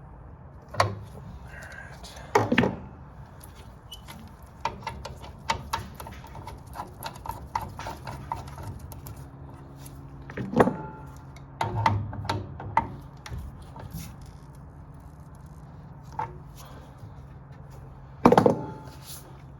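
Hand tools on metal gas fittings: scattered clicks, clinks and a few sharper knocks as the connections on a water heater's replacement gas valve are worked and tightened, over a low steady hum.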